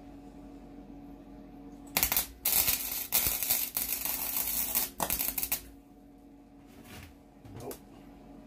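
Wire-feed (MIG) welder arc crackling as it welds the steel lawn mower deck, starting about two seconds in and running for about three and a half seconds with a couple of brief breaks. A steady low hum sits under it throughout.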